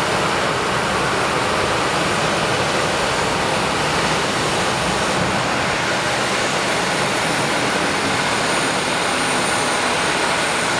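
Steady rushing noise with a thin high whine, which gets a little stronger late on. It is plausibly the Airbus A319's auxiliary power unit running while the aircraft stands parked at the gate.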